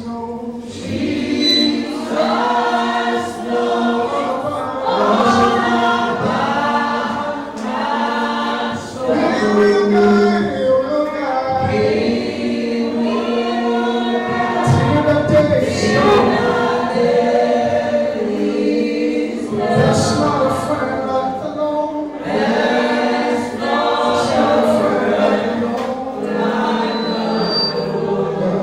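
A choir of many voices singing a gospel worship song, with music behind them.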